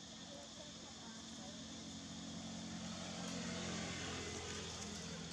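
A motor vehicle engine runs as a steady drone, growing louder from about two seconds in and peaking near the end.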